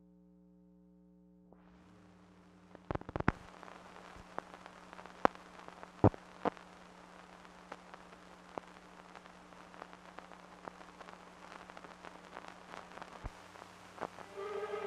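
Noise of an old film's optical soundtrack running over leader: a faint steady hum, then hiss with scattered sharp pops and clicks. Music begins to fade in near the end.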